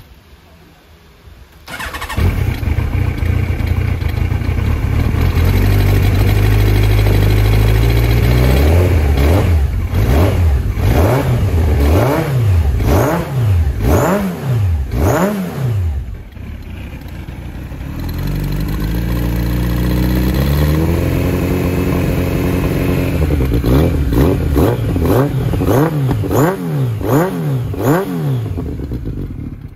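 Yamaha XJR1300's air-cooled inline-four, breathing through Keihin FCR 39 carburettors on open funnels and a devil slip-on muffler, starting about two seconds in and idling. It is then blipped in a run of quick revs, settles back to idle, and is blipped again in another run near the end.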